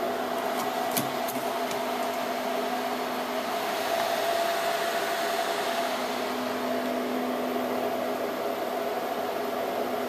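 Dell PowerEdge 2950 server's cooling fans running with a steady whir and hum, with a single click about a second in.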